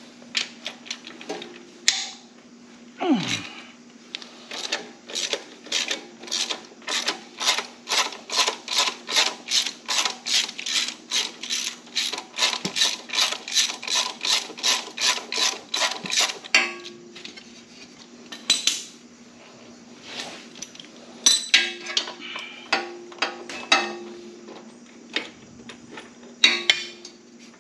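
Ratchet wrench clicking steadily, about three clicks a second, as a 13 mm engine mounting bolt is worked loose. This is followed by a few scattered metallic clinks of tools and parts being handled.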